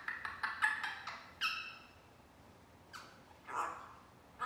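African grey parrot chattering: a quick run of short calls in the first second, a clear whistled note about a second and a half in, then two rougher, breathier sounds around three seconds in.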